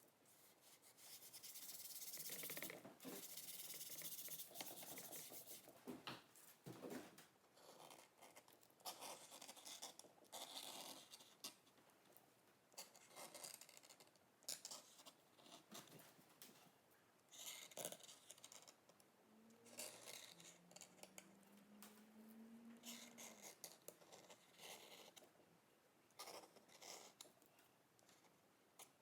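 Faint, irregular scratching and rubbing strokes of an art tool working on a gessoed painting board. A short, low, slightly rising tone sounds about twenty seconds in.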